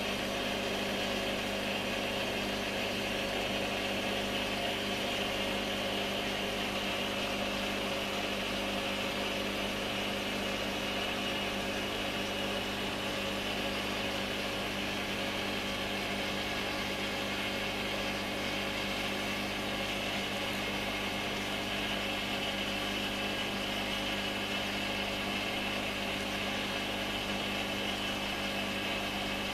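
Aquarium pump humming steadily, with an even hiss over the hum.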